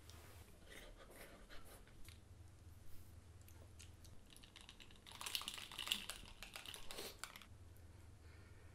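Faint scattered clicks. A busier spell of clicking and crackling comes about five seconds in and lasts some two seconds.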